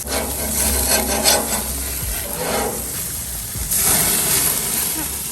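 Rasping scrapes of a metal tool across a barbecue grill, about three strokes: the first near the start, one in the middle, the last a little before the end.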